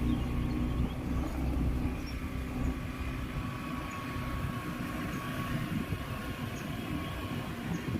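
A motor vehicle's engine running steadily: a low rumble with a steady hum, a little louder in the first two seconds.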